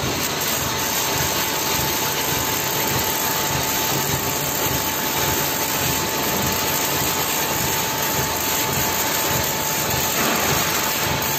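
Steady machinery drone of a crane lifting a steel box girder on its chain sling, with a faint steady whine setting in about a second in.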